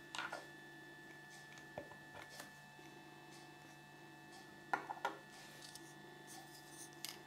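Small plastic Kinder Surprise toy parts clicking and tapping as they are handled and fitted together: a few scattered sharp clicks, the loudest two close together about five seconds in, over a faint steady hum.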